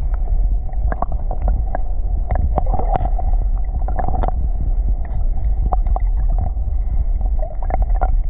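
Muffled underwater sound from a camera held just below the surface of shallow sea water: a steady low rumble of moving water with scattered sharp clicks and ticks.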